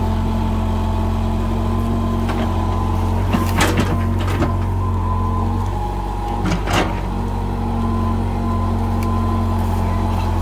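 Caterpillar tracked hydraulic excavator's diesel engine running steadily with a steady higher whine, as the bucket digs into the earth. A few sharp knocks about three and a half seconds in and again near seven seconds, from the bucket and boom working.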